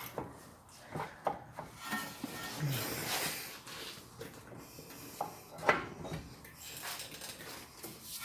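Metal clunks, knocks and scraping as a CV drive shaft is worked into the wheel hub, with a sharper knock about five and a half seconds in.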